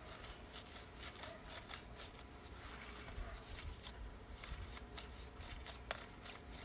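Rag wiping a greasy motorcycle chain sprocket: faint, irregular rubbing and scuffing strokes, with a sharper click near the end.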